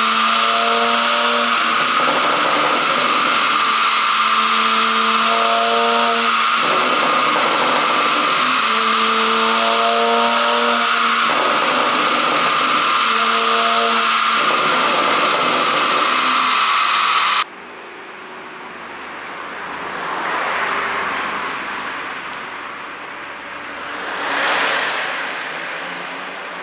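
Car engine held at raised revs four times, each for a couple of seconds, over a loud steady rushing noise. About two-thirds of the way in the sound cuts abruptly to the car driving past twice, each pass swelling and fading.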